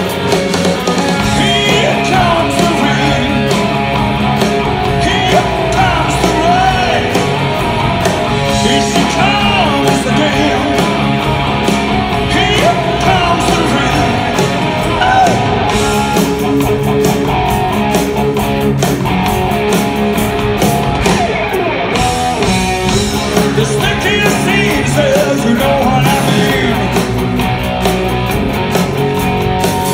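Live rock band playing loudly, with electric guitars, drums and a male lead vocal singing over them, heard from within the crowd.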